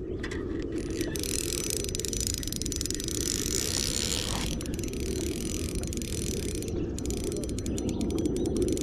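Fishing reel's drag ratcheting as a hooked fish runs and pulls line off the spool, with a quicker run of clicks near the end. A steady low rumble sits underneath.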